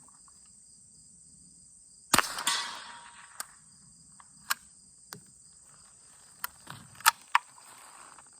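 Winchester Model 77 .22 semi-automatic rifle: one sharp loud report about two seconds in, then a string of metallic clicks and clacks from the action, one of them a dud round's light primer strike. Crickets chirp steadily throughout.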